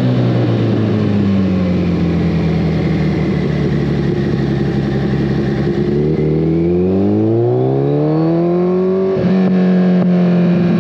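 2014 Kawasaki ZX-14R's inline-four engine through a full Brocks Alien Head 2 exhaust while riding. The engine note falls at first, holds steady, then rises smoothly under acceleration for about three seconds. A quick gear change about nine seconds in drops it back to a steady lower pitch.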